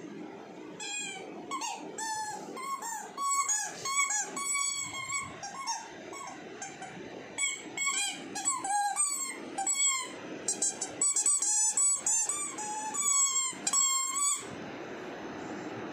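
Squeaky rubber toy ball squeaking over and over in quick runs of short, high squeaks as a Rottweiler puppy chews it, with a brief break about six seconds in. The squeaking stops shortly before the end.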